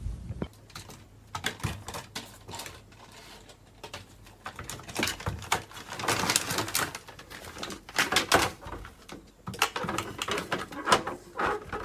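Plastic cat flap clacking and rattling in irregular clusters of sharp clicks as a cat pushes against it and clambers through.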